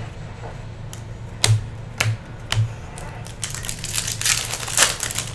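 Three sharp taps about half a second apart, then a Topps Chrome foil card pack wrapper crinkling and tearing as it is ripped open.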